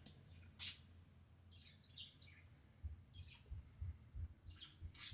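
Pet parakeet chirping in short high bursts, the sharpest about a second in and near the end. From about three seconds in there are faint, irregular low thumps as well.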